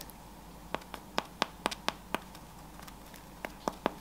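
Two macarons tapped against each other, giving a series of light, sharp clicks: about eight in quick irregular succession in the first two seconds, then three more near the end.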